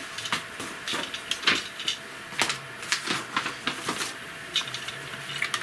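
Irregular clicks and taps of hard plastic model-kit parts being handled and pressed together as a snap-fit piece is pushed into place.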